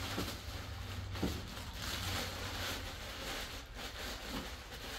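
Clear plastic wrapping crinkling and rustling as it is pulled off a chainsaw, with a few small clicks.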